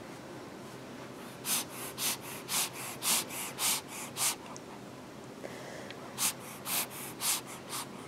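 A five-month-old baby sniffing quickly through her nose, short sharp sniffs about two a second in two runs with a pause between them.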